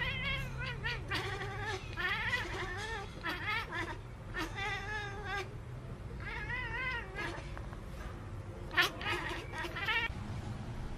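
Domestic cat yowling: a series of wavering, warbling calls in bursts of one to two seconds with short gaps between them. A single sharp click comes just before nine seconds in.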